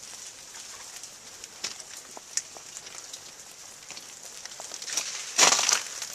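Meltwater dripping and pattering from thawing ice after an ice storm: irregular light ticks, with one louder, longer noise about five and a half seconds in.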